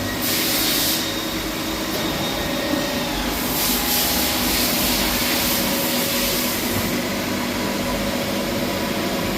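CNC machines running in a machining workshop: a steady mechanical drone with several humming tones. A high hissing rush rises over it for about a second near the start, and again for about three seconds in the middle.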